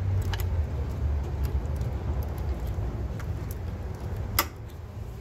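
Low rumble of clothing rubbing against the microphone, with a few light metallic clicks from hand tools and one sharp metal click about four seconds in.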